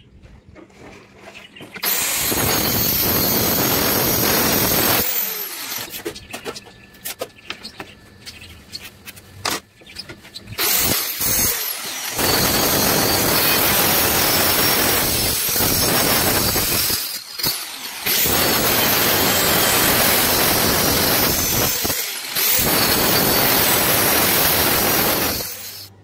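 Handheld electric circular saw cutting a wooden board: it runs for about three seconds, then stops for a few seconds of light knocks and clicks, then runs again in three long cuts broken by brief pauses, winding down at each stop.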